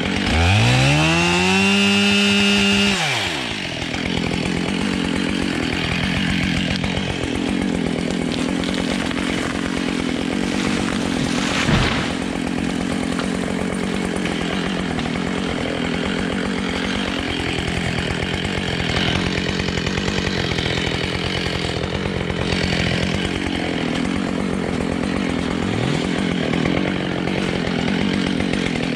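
Husqvarna 572 XPG two-stroke chainsaw revving up to full throttle, the pitch dropping sharply about three seconds in, then running steadily under load, cutting through beech wood. The saw is new and not yet run in, which the owner says makes it sound somewhat different.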